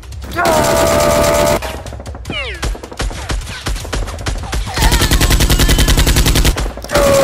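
Rapid-fire machine-gun sound effect, dubbed over a toy Nerf blaster being fired, starting about five seconds in and lasting just under two seconds. Before it, a loud steady tone lasts about a second near the start, and a few falling swoops come around the middle.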